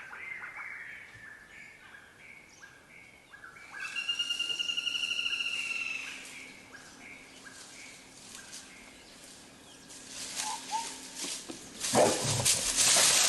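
Birds calling: a run of short chirps, then a fast trill about four seconds in lasting around two seconds. Louder rough, noisy sounds come near the end.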